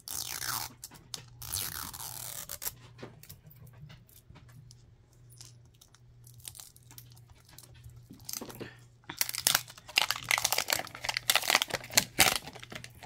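Plastic wrapper of a toy surprise ball being picked at and peeled off by hand, crinkling and tearing. Short bursts of rustling come in the first few seconds, then louder, denser crinkling and tearing from about nine seconds in to near the end.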